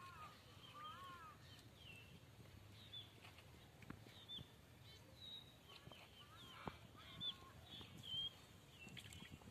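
Faint bird calls: many short, high chirps repeating throughout, with a few lower arching calls near the start. A couple of soft clicks come a little past halfway.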